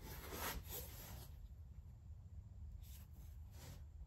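Faint rubbing and scraping of a cardboard packaging box being handled and turned in the hands, strongest in the first second or so, with a few softer rubs near the end.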